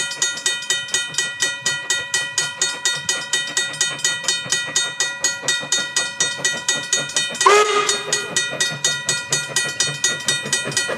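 Steam locomotive F 13 'Peveril', an 1872 NZR F class 0-6-0 tank engine, working with an even beat of exhaust chuffs, about five a second. About seven and a half seconds in it gives one whistle blast of about a second, which drops briefly in pitch before it holds steady.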